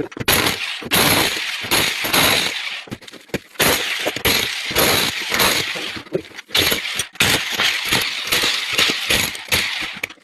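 Ceramic being broken up: a rapid, irregular series of crashes and clinks as the old porcelain toilet is smashed apart for removal.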